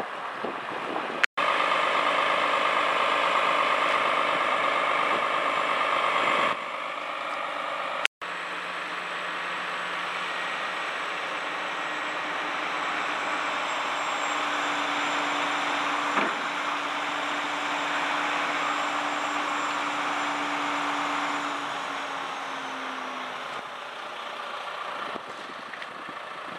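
Crane lorry's diesel engine running steadily while it drives its truck-mounted hydraulic crane, with a steady hum that drops in pitch and fades about 23 seconds in. The sound breaks off for an instant twice, about a second in and about 8 seconds in.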